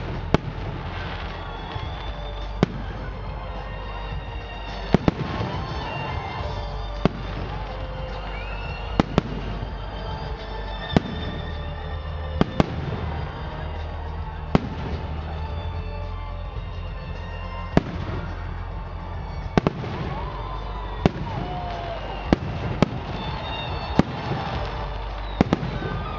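Fireworks display: sharp bangs of shells bursting every second or two, some in quick pairs, over a steady background din.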